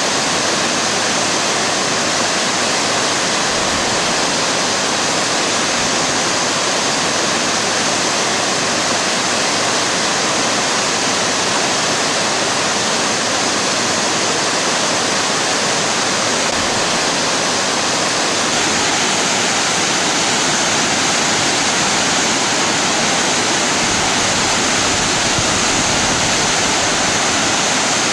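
Shirahige Falls: spring water gushing from a cliff and dropping about 30 m into the river below, making a loud, steady rush of falling and splashing water that never lets up.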